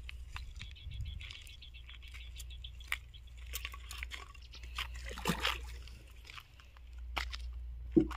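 Light water sloshing and splashing with scattered clicks and knocks, over a steady low rumble.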